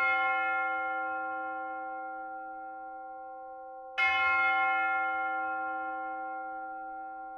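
A bell struck twice, about four seconds apart, each strike ringing on with several steady tones and slowly dying away.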